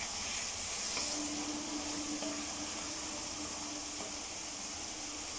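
Masala frying in oil in a kadhai, with a little water just added, giving a steady sizzle and hiss; the water is added to keep the masala from burning.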